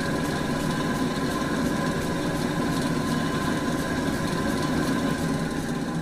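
Large drill press running steadily: a constant motor hum with a steady high whine over it.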